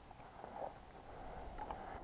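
Faint footsteps rustling through dry, tall grass, with a few small crackles of stems and a low rumble underneath.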